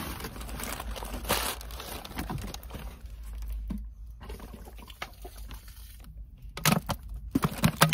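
Rustling and crinkling of bags and loose items being rummaged through, with louder crinkling of a paper bag close by near the end.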